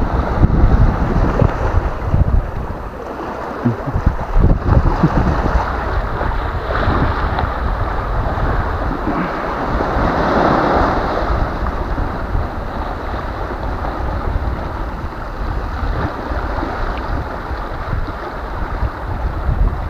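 Wind buffeting the microphone over the steady wash of surf on a sand-and-pebble shore, gusting hardest in the first few seconds; the wash swells about halfway through.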